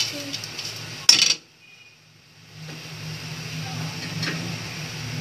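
A light clink, then one sharp metal knock about a second in as steel kitchenware is handled; after a brief dropout, a steady low hum.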